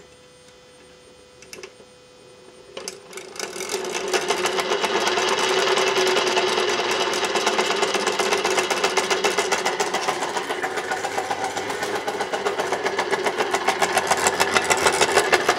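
Hyper9 electric motor turning an outboard's gearcase and propeller out of the water: after a quiet start with a couple of clicks, it spins up about three seconds in and runs with a steady hum and a fast, even rattle. The rattle is an unexplained noise whose source is being hunted for, seemingly down in the outboard's leg rather than up top.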